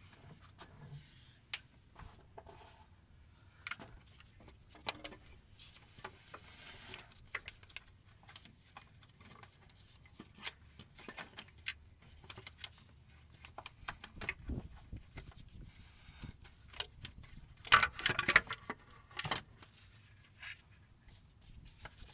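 Scattered clicks and metallic clinks of hand tools and parts being handled during work on a truck engine. A short hiss comes about six seconds in, and a dense run of sharp clicks about eighteen seconds in.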